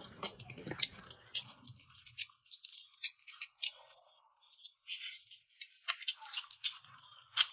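Chewing close to the microphone, fading out about two seconds in, and fingers peeling the shell off a cooked shrimp: a quick, uneven run of small crisp crackles and clicks.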